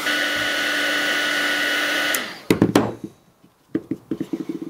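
A small 350-watt heat gun blowing steadily with a fan whine while it shrinks a heat-shrink coolant hose clamp, switched off about two seconds in and winding down. A few sharp knocks follow as it is set down, then light handling clatter.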